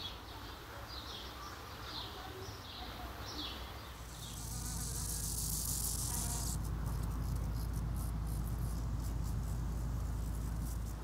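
A flying insect buzzing steadily, starting about four seconds in and getting louder. Before it comes a run of short high chirps, about two a second.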